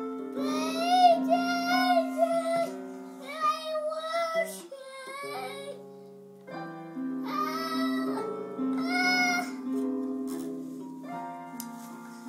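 A young boy singing loudly in a high voice over sustained backing notes that change pitch in steps, with a short break in the singing about six seconds in.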